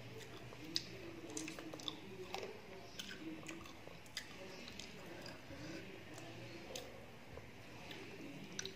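A person chewing a mouthful of rice and chicken curry, with scattered short clicks, while fingers mix rice and curry on a metal plate.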